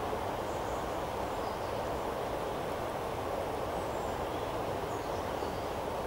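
Steady, even rush of flowing river water, with a few faint high chirps.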